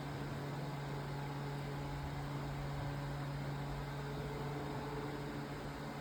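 Steady low mechanical hum: a constant low drone with fainter higher tones over an even hiss, such as a machine, ventilation or a vehicle's interior running.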